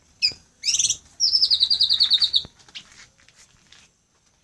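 Caged songbird calling: two short high chirps, then a loud rapid trill of about ten notes a second that slides slightly down in pitch. Softer scattered calls follow near the end.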